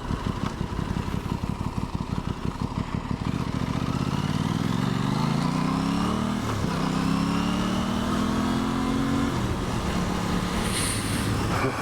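Aprilia Tuono 660's parallel-twin engine running at low revs, then accelerating: the note climbs, breaks at a gear change about six seconds in, climbs again in the next gear, then settles to a steadier cruise.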